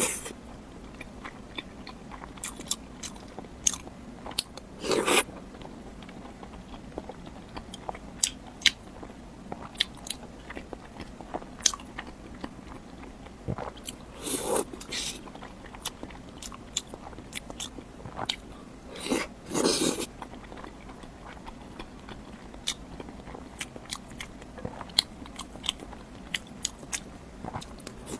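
Close-miked eating of century egg: biting and chewing with many small wet mouth clicks, and a few longer, louder mouth sounds about 5, 14 and 19 seconds in.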